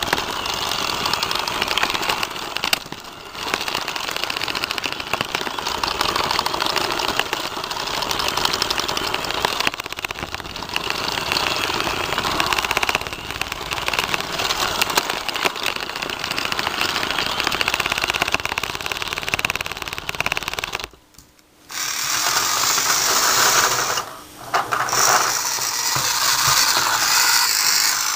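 Rokenbok toy monorail's small motor and gear drive running along its track, a continuous mechanical noise with a fine rapid clicking, heard from the moving car. It cuts out for about half a second about three-quarters of the way through and dips again briefly soon after.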